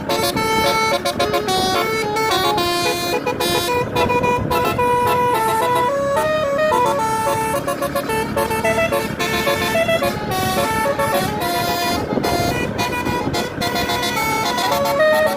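Basuri 'telolet' multi-tone horn on a Putera Utama tour bus playing a fast melody, its tones stepping up and down note after note.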